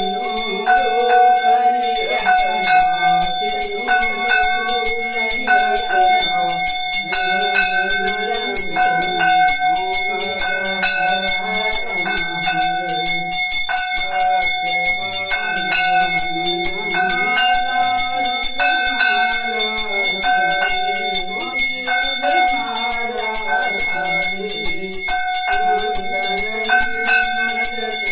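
A puja hand bell rung rapidly and without pause, its strikes coming many times a second so the ringing tones run together, over a slow melody.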